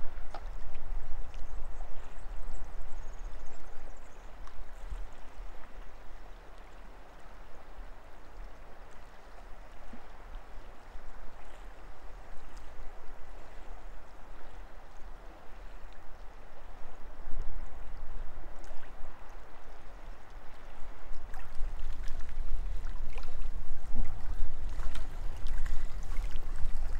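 Wind buffeting the microphone over water lapping at the lake's edge, a steady rushing noise that dips in the middle and builds again toward the end, with a few small clicks near the end.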